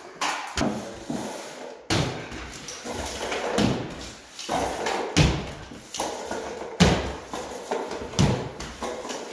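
Irregular knocks, clatters and scraping from drywall taping work: a taping banjo being run and pressed against ceiling seams, with sharp knocks every half second to second and a half.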